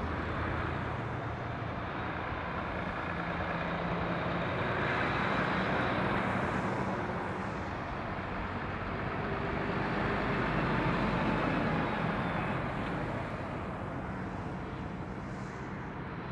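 Road traffic on a roundabout: diesel lorries and a pickup truck driving past, engines running over steady tyre noise. It swells louder as vehicles pass close, about six and again about eleven seconds in.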